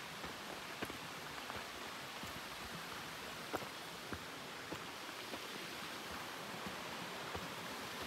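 Steady rush of a waterfall and its stream, an even wash of water noise with scattered faint clicks over it.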